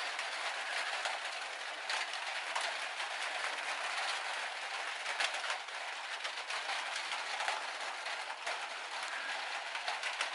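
Rain shower falling on the roof of a 2017 Ram ProMaster high-top van, heard from inside the cabin: a steady hiss of rain with many small, sharp drop taps through it.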